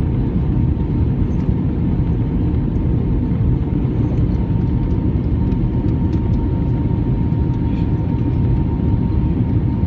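Steady cabin noise inside a jet airliner: a constant low rush of engine and airflow noise with a faint steady hum on top.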